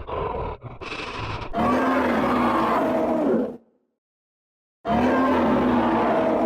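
Predator (Yautja) creature sound effect: a choppy, broken growl, then two long roars with a pitch that rises and falls, a little over a second apart.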